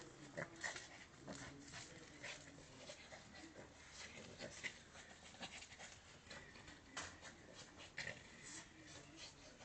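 Shih tzu making faint, short, irregular dog sounds as it plays rough with a plush toy.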